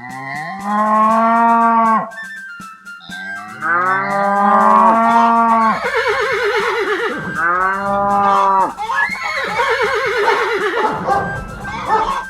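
Cow mooing: three long, drawn-out moos, then wavering, shaky animal calls in the second half, over faint background music.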